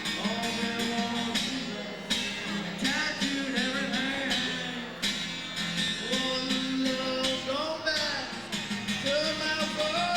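Rock band playing live, with drums and guitar carrying the melody.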